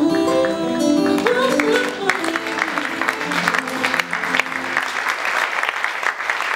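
Music with a plucked-string sound fades out over the first few seconds. From about two seconds in, an audience breaks into applause, and the clapping carries on while the performer bows.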